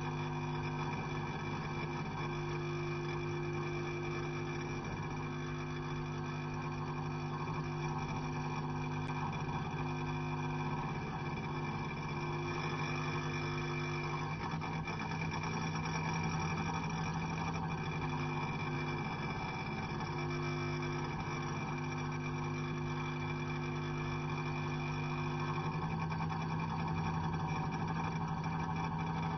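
Electric meter giving off a steady electrical hum made of several constant tones, the lowest and strongest one deep. Some of the tones drop out for a few seconds around the middle and then return.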